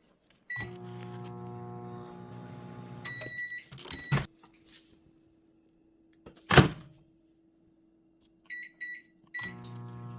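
Microwave oven running with a steady hum, heating sugar syrup on skewered fruit. It stops with beeps about four seconds in. There is a loud thunk midway, then keypad beeps, and the microwave starts humming again near the end.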